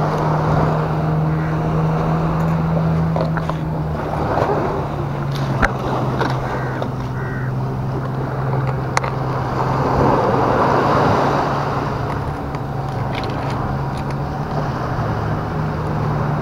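A steady low engine drone, dipping slightly in pitch about four seconds in, over waves washing through beach rocks. A few sharp clicks from a plastic bait tub being opened and handled, two of them clearest about five and nine seconds in.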